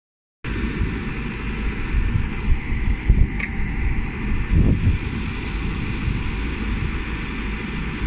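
Caterpillar backhoe loader's diesel engine running steadily at close range as the hydraulic arm holds and adjusts the bucket, with wind rumbling on the microphone.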